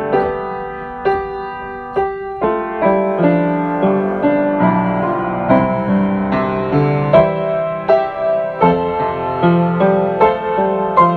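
Solo piano music: single notes and chords struck a few times a second and left to ring.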